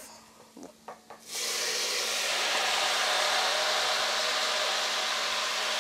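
Chopped tomatoes poured into a pot of hot olive oil with onion and garlic, setting off a sudden loud, steady sizzle about a second in.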